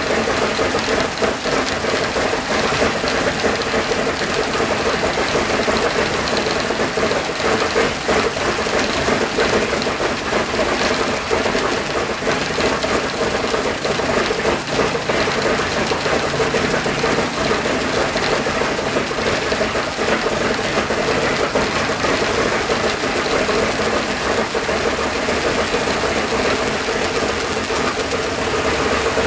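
The left engine of an Ilyushin Il-14T, a Shvetsov ASh-82T 14-cylinder twin-row radial, running steadily and loudly with its propeller turning.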